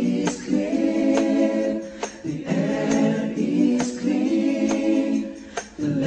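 Background vocal music: a group of voices singing held notes with no instruments heard, broken by short sharp accents about once a second.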